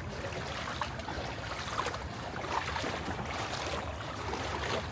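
Floodwater on a street sloshing and splashing steadily, with small irregular splashes.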